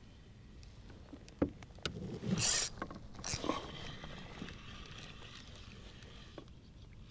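A spinning rod being cast: a sharp click, then a loud swish of the cast a little over two seconds in, a second shorter burst of noise about a second later, and a fainter hiss that dies away.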